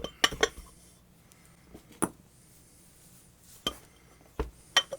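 Metal tools and parts clinking and knocking while a submersible water pump is being taken apart by hand. A quick run of clinks comes near the start, then single sharp knocks a second or two apart, with two close together near the end.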